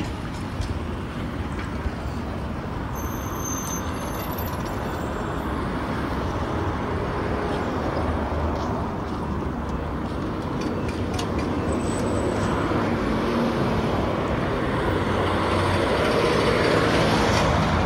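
Roadside traffic noise: a steady hum of cars and vans driving past on an open street, growing louder near the end as vehicles pass close.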